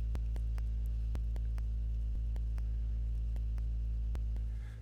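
Steady low electrical hum with a faint buzz above it, and scattered faint clicks.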